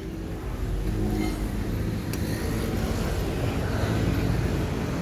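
A motor vehicle's engine running: a steady low rumble with a faint, shifting hum above it.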